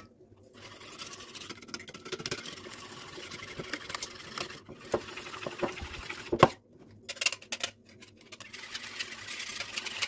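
Wire whisk beating eggs into yogurt in a wooden bowl: fast, rhythmic scraping and tapping against the bowl, with a few brief pauses.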